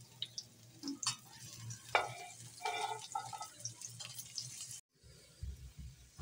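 Sliced onions frying lightly in hot oil in a pan, a soft crackling sizzle, with a spatula scraping and stirring them against the pan. About five seconds in the sizzle cuts off and a few faint low knocks follow.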